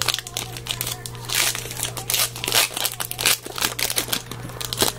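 A trading card pack's wrapper being crinkled and torn open by hand, with irregular crackling and rustling. A steady low hum runs underneath.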